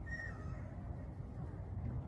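A low, steady outdoor rumble, with one short, high bird call that falls in pitch near the start.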